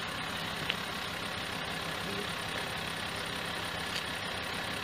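A vehicle engine idling steadily, with a short click just under a second in.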